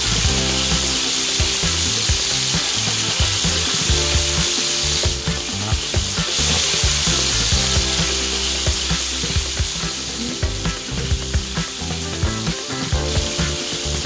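Oil sizzling steadily in a frying pan with frequent small pops and crackles as batter-filled bell pepper and zucchini rings fry. Background music plays underneath.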